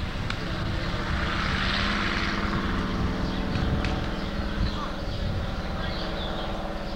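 An engine drones at a steady pitch. Its noise swells to a peak about two seconds in and fades over the next few seconds, like an engine passing by.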